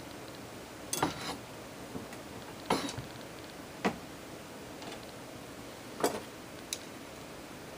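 A handful of separate sharp clicks and knocks from reloading tools being handled on the bench, metal parts clacking against each other five times at uneven intervals.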